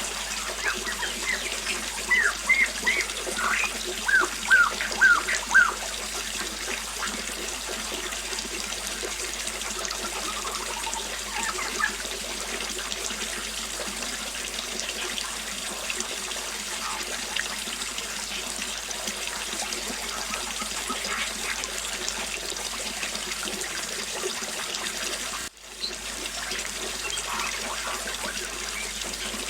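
Small waterfall splashing and trickling steadily. A bird calls a few seconds in with two quick runs of short falling chirps, and fainter chirps follow later. The water sound drops out for a moment near the end.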